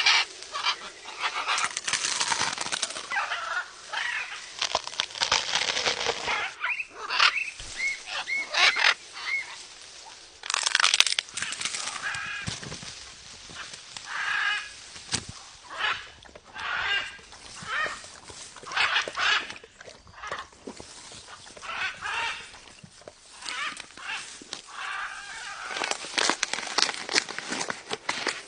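Parrot calling over and over, in runs of short squawks and chatter.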